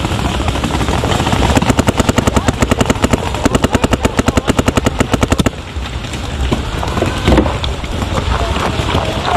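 Paintball marker firing a fast string of shots, about ten a second, starting about a second and a half in and cutting off abruptly some four seconds later.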